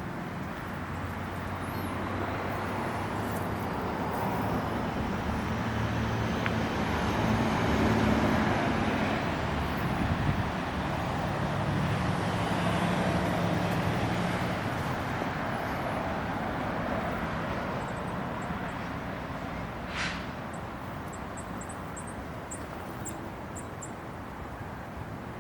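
Road traffic: a motor vehicle's engine hum and tyre noise swelling to a peak about a third of the way through, then slowly fading. A single sharp click sounds near the end.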